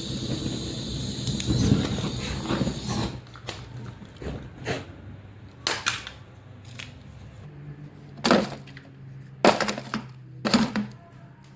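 A power tool runs with a steady high whine and cuts off about three seconds in. Then come several separate sharp knocks, a few of them close together near the end, over a low hum.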